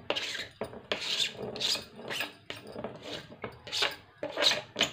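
Repeated short scraping strokes, about two a second, as chopped green chillies and grated garlic and ginger are scraped off a chopping board into a steel plate of sattu.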